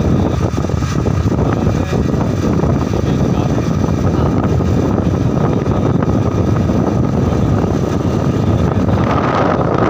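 Wind rushing over the microphone with a motorcycle engine running underneath, heard from the pillion seat while riding. A steady loud roar, with a higher hum coming up near the end.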